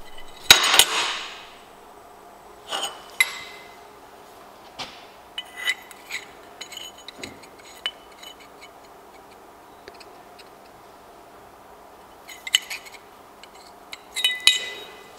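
Small folded steel-plate brackets clinking against each other and the steel workbench as they are picked up, fitted together and put down: a handful of light metallic clinks with short ringing, the loudest at the start.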